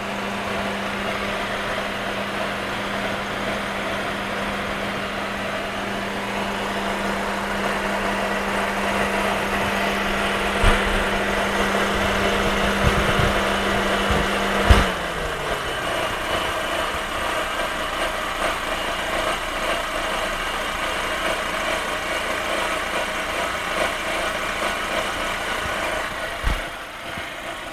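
Fiat engine idling hot, with the electric radiator fan running as a steady hum that clicks off about halfway through and winds down. The owner hears a rubbing, scraping noise from the timing-belt area, present only when hot at idle, since the timing belt was changed.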